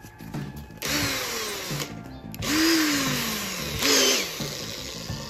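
Cordless drill running in three bursts, spinning a self-drilling screw against an angle grinder's abrasive cutting disc, with a loud grinding hiss of metal on the disc. The drill's motor pitch falls away at the end of each burst. Background music plays underneath.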